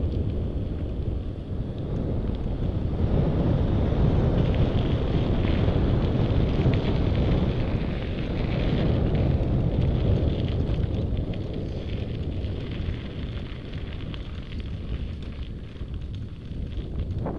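Wind buffeting an action camera's microphone during a bike ride, with the rumble of tyres rolling over gravel and faint crunching ticks. It swells for several seconds in the middle, then eases off.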